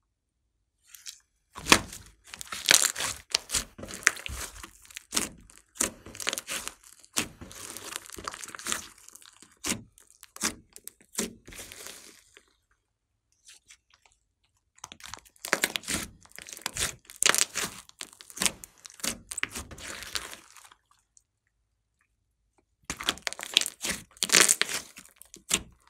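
Thick glossy slime being stretched, pulled apart and pressed by hand, sticky and full of many small clicks and pops as it tears and trapped air pockets burst. It comes in three spells with short pauses between them.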